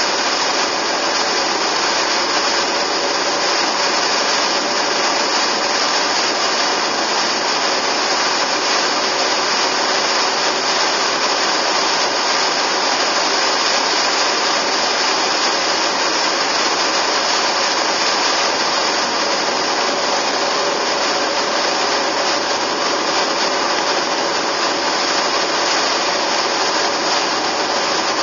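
Steady road and wind noise of a car driving at speed: an even hiss with no breaks.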